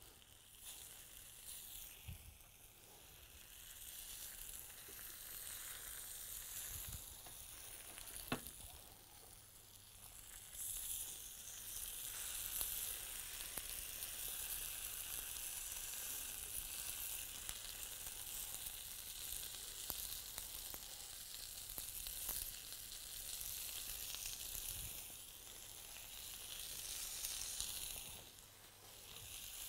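Thin potato slices sizzling in butter and fat in a frying pan as they are laid in a ring for pommes Anna. The sizzle grows louder about ten seconds in, with a few light clicks.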